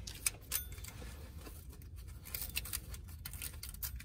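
Nylon zip tie being pulled tight, its ratchet giving a few scattered clicks and a quick run of ticks about two and a half seconds in, with light handling of the belt.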